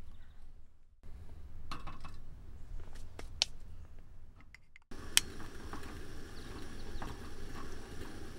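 Scattered light clinks and taps, like camp dishes and utensils being handled. About five seconds in, the sound cuts to a steady wind rush with a single sharp click.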